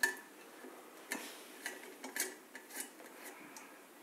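Small, irregular clicks and ticks of a precision screwdriver working a small screw into a circuit board, about six or seven over a few seconds.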